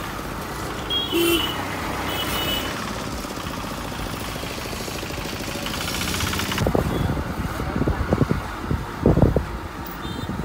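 Street traffic heard from a moving scooter: steady road and wind noise, with two short high beeps about one and two seconds in, like a vehicle horn. In the second half, low buffeting thuds from wind on the microphone.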